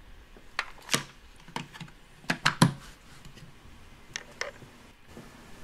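Hard plastic parts of a toy dentist playset clicking and knocking as they are handled and its hinged head is opened: a series of irregular, sharp clicks.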